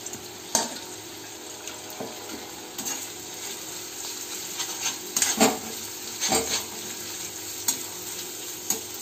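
Onions, green chillies, ginger and garlic sizzling in hot coconut oil in a steel kadai, stirred with a metal spoon that scrapes and clinks against the pan now and then. The loudest clinks come about five to six and a half seconds in.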